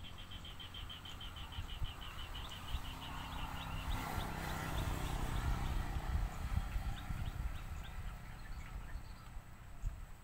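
A small animal's rapid run of short, high chirps, about seven a second, thinning out to scattered single chirps after about three seconds, over a low rumble.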